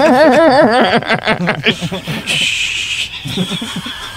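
Men laughing hard together: a loud burst of laughter that trails off into lighter chuckling, with a brief hiss about halfway through.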